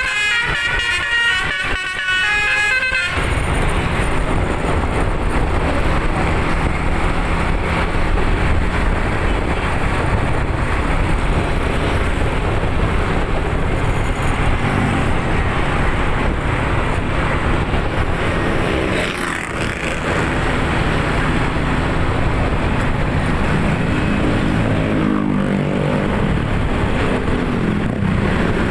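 Bus telolet horn playing a quick multi-tone melody for about the first three seconds, cut off by the running bus engine and road noise, a steady heavy rumble. Near the end the engine note rises briefly.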